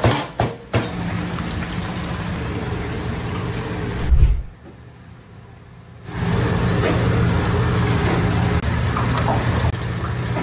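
Steady low hum of kitchen machinery, with a few sharp knocks in the first second from a wooden pestle pounding in a pilón and one heavy thud about four seconds in. After the thud the hum drops away for about a second and a half, then returns.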